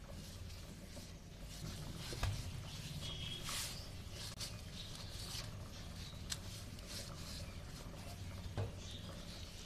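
Hand mixing flour and water into bread dough in a stainless steel bowl: faint rubbing and scraping against the metal, with a few light knocks, over a low steady hum.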